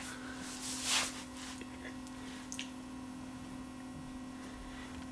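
Quiet room tone with a steady low electrical hum, and a short soft rush of noise about a second in.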